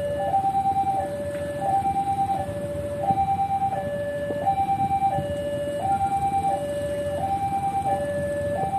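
Railway level-crossing warning alarm sounding: an electronic two-tone signal steadily alternating between a higher and a lower note, each held about two-thirds of a second, over low street noise. It warns that the barriers are down for an approaching train.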